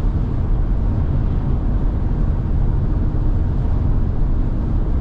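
Steady low rumble of road and wind noise inside a moving Tesla Model Y's cabin, driven in strong, gusty wind.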